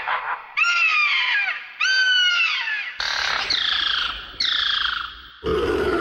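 Sound-effect calls of a pterosaur: a series of four shrill screeches, each falling in pitch, followed near the end by a lower, longer call.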